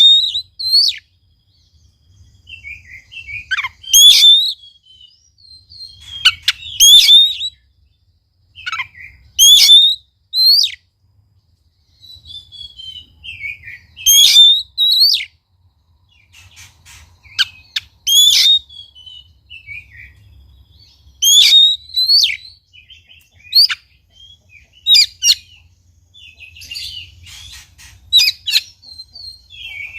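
Oriental magpie-robin (kacer) singing loud, short phrases of sharp whistles and chirps, each phrase a few seconds after the last.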